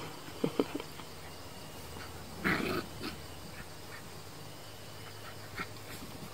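Puppies playing, giving two short high yips about half a second in and a louder yap about two and a half seconds in, with a few faint squeaks later.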